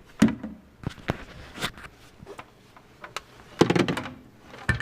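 Handling noise: scattered knocks, clicks and rustles, with a denser cluster of knocks a little past halfway.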